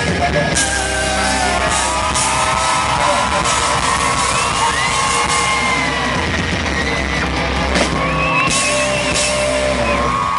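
Live rock band playing loud, with electric guitar, drums and cymbal crashes. High-pitched screams from fans ring over the music, mostly in the second half.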